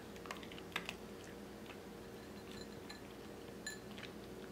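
Norfolk terrier chewing dry kibble: irregular crisp crunches and clicks, a dozen or so, spaced unevenly.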